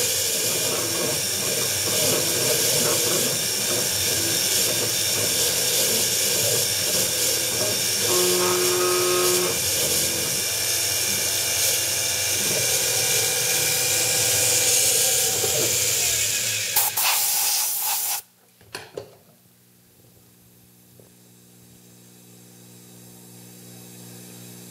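A coolant nozzle hisses loudly onto a fine engraving cutter as a small CNC mill engraves lettering into an aluminum handle blank, with a brief higher whine from the machine about 8 seconds in. The hiss cuts off abruptly about 18 seconds in, leaving a faint steady hum and a few clicks.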